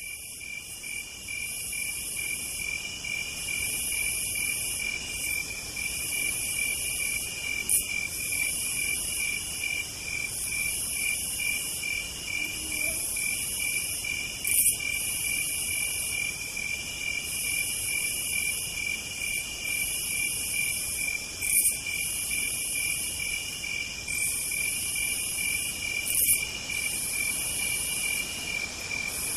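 Night chorus of singing insects, which the uploader calls cicadas. A steady, rapidly pulsing chirp runs underneath, with higher, shriller buzzing phrases that come and go every second or two. Four short, louder bursts stand out over the chorus.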